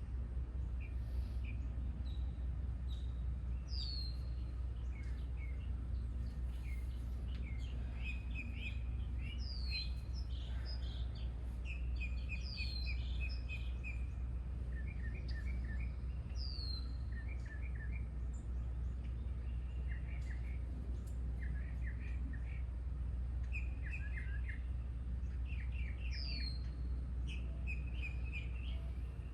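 Several wild birds singing: high falling whistles repeated every few seconds and quick runs of chirps, over a steady low rumble.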